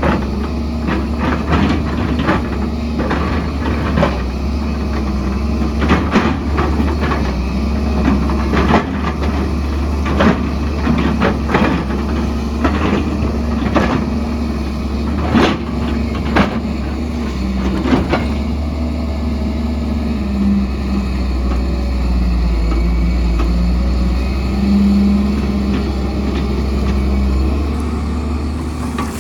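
Excavator running under load with a steady low engine drone, with frequent clanks and knocks of the bucket working rock and soil over the first two-thirds; later the knocks thin out and the engine runs steadier, its pitch shifting a little.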